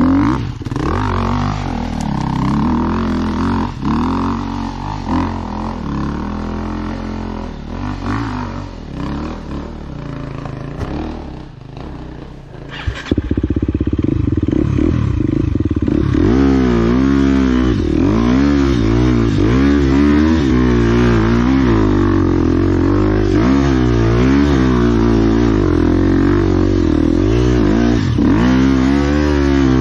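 Enduro motorcycle engine running under way off-road, the revs constantly rising and falling. It eases off for a spell, then after a sharp knock about halfway through it runs louder, with the revs rising and falling continuously.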